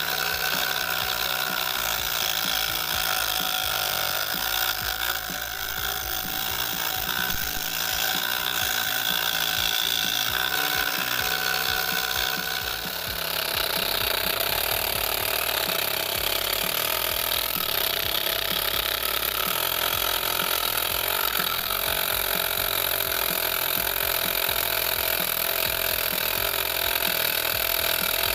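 Homemade scroll saw driven by a 12 V 775 DC motor running steadily, its blade sawing through thin plywood. The tone of the motor and blade shifts a little about halfway through.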